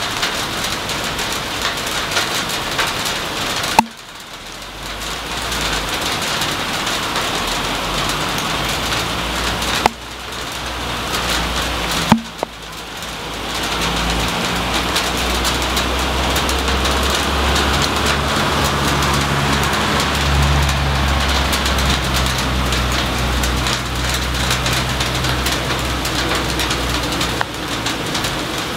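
Hail shower falling steadily, a dense patter of hailstones. Three sharp, loud clicks stand out about 4, 10 and 12 seconds in, which the uploader attributes to single hailstones striking the camera. A low steady rumble joins from about halfway through.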